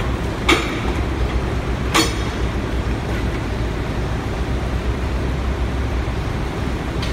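Mack MR garbage truck's diesel engine idling steadily, with two sharp knocks about half a second and two seconds in as cardboard boxes are thrown into the loading.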